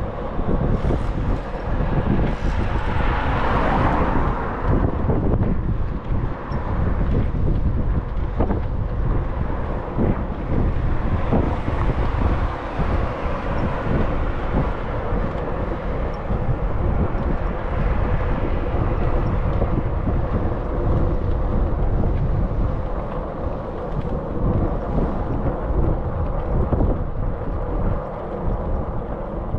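Steady wind rumbling on the microphone, with a brighter rushing hiss that swells about two seconds in and fades a few seconds later.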